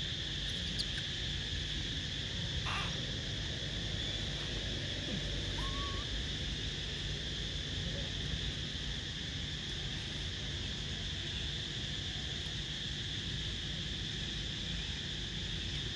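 Steady high-pitched insect drone, a constant buzz over a low rumble, with one short rising chirp about six seconds in.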